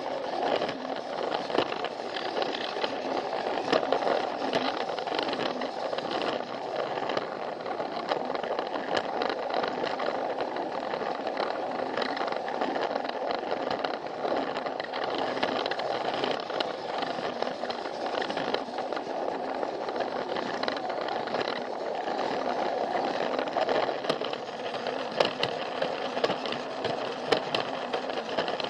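Plarail toy train's small battery motor and gearbox whirring steadily as it runs along plastic track, with scattered clicks and rattles from the wheels on the track.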